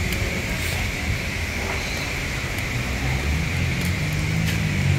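A car running, with a steady low engine hum and road noise.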